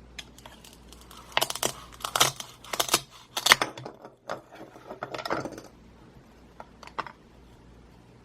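A plastic toy knife cutting a Velcro-joined toy persimmon on a cutting board, with the Velcro halves tearing apart. There are about four short scratchy clacks and rips in the first half, a longer rasp around five seconds in, and a single tick near seven seconds.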